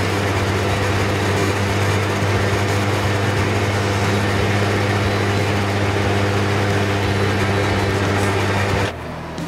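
Metal lathe running, turning a billet aluminium bar against the cutting tool: a steady hum with a hiss over it. It cuts off suddenly near the end.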